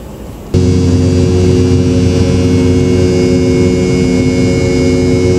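Jet airliner engines, a loud steady drone with several steady whining tones, starting abruptly about half a second in.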